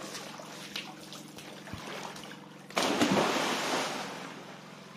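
Light water sloshing and dripping, then about three seconds in a loud splash as a person jumps into the sea, the spray falling back over the next second.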